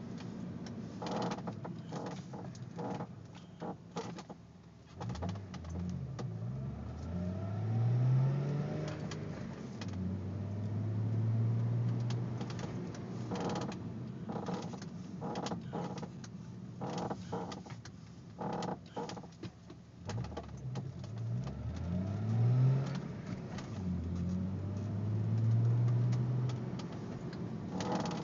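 An Audi A4 creaking: repeated short creaks and clicks throughout, while the car's engine note rises and then holds twice as it accelerates.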